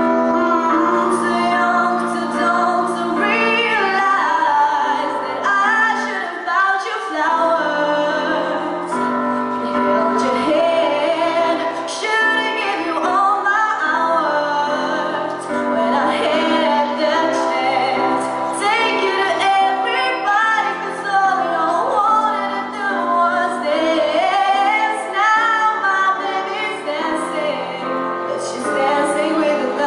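A woman singing a song over instrumental accompaniment, with long held notes.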